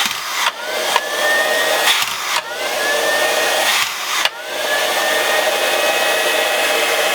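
The iCLEBO O5 robot vacuum's suction fan motor runs with a steady airy rush and whine. Three times, about two seconds apart, the sound breaks briefly and a whistle climbs in pitch as the fan spins back up.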